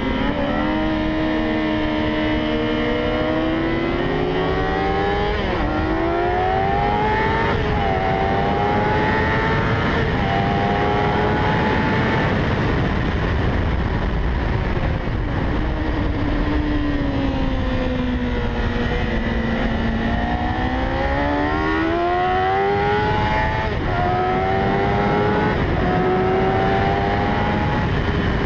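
A 600 cc inline-four sport bike engine heard from on board, pulling hard up through the gears, its pitch climbing and dropping sharply at each upshift. About midway it eases off and the revs sag for a few seconds, then it pulls up through the gears again, with a steady rush of wind throughout.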